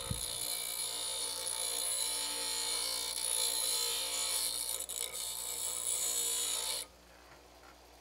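Bench grinder running with a metal bicycle bottom bracket shell held against its wheel, a steady grinding hiss as the shell is cleaned up. It cuts off suddenly about seven seconds in.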